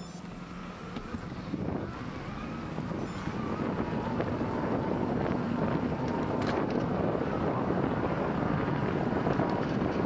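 Wind rushing over the microphone and knobby mountain-bike tyres rolling on asphalt as the bicycle picks up speed, growing louder over the first few seconds and then holding steady.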